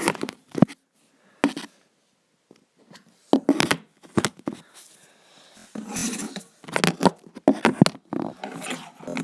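Handling noises: scattered knocks, clicks and rustles with short quiet gaps between them.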